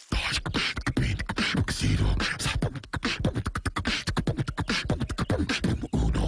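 Vocal beatboxing: rapid drum-like mouth sounds, kicks, snares and clicks, in a fast, dense rhythm.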